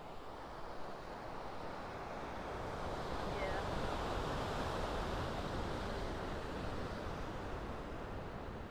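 Ocean surf washing on the shore, with wind on the microphone; the rush swells gradually and eases back.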